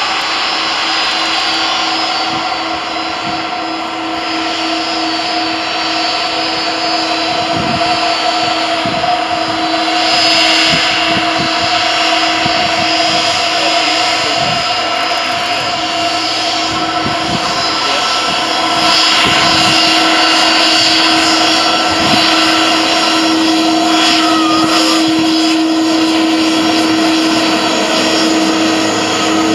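Airbus A330-300 jet engines whining steadily at low taxi power as the airliner rolls past, a constant hum under a high whine. It grows somewhat louder about a third of the way through and again past the middle.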